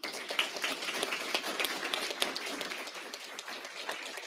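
Audience applauding, many hands clapping in dense, irregular overlapping claps.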